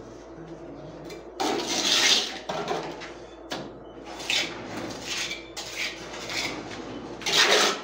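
Trowel scraping wet cement mortar, taking it up from a pan and working it onto a block wall around a flush socket box: a series of rough scraping strokes, the loudest about a second and a half in and again near the end.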